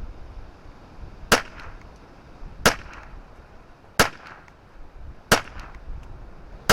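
Ruger 10/22 semi-automatic rifle with a Kidd barrel firing Eley Contact subsonic .22 LR: five sharp shots, evenly spaced about one every 1.3 seconds, the last right at the end. Gusty wind rumbles on the microphone underneath.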